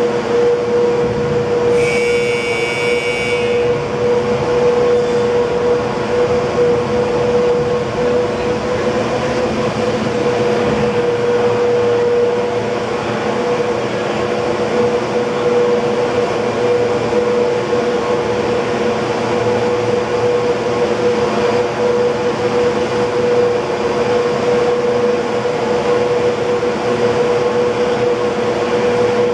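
San Francisco cable car powerhouse machinery running: the drive motors and big winding sheaves that pull the street cables make a loud, steady mechanical hum with a constant whine. A brief high-pitched tone sounds once, about two seconds in.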